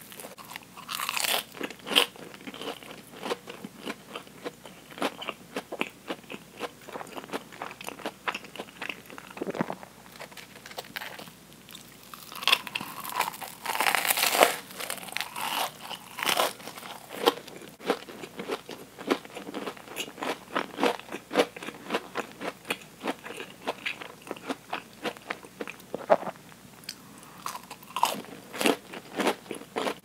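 Close-miked eating of deep-fried Oreos: the crisp fried batter crunches on each bite, with a steady run of chewing clicks between. The loudest bites come about a second in, around twelve to fifteen seconds in, and near the end.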